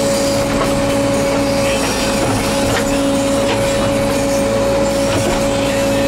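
Case 580L Turbo backhoe's four-cylinder turbo diesel running steadily, with a steady high whine over the engine noise.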